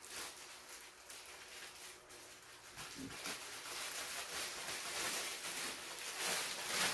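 Clear plastic wrapping crinkling and rustling as it is pulled open and torn off a guitar in its bag, louder in the second half.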